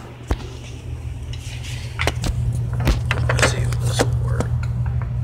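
Phone being handled and set in place: scattered knocks, scrapes and light clinks, busier from about two seconds in, over a steady low hum.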